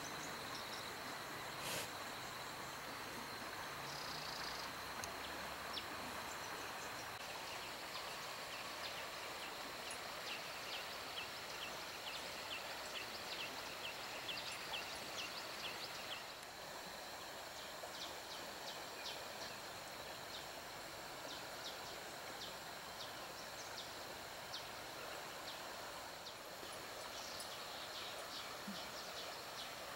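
Rural outdoor ambience: a steady high insect hum, with runs of short high chirps repeating about twice a second through the middle and again near the end.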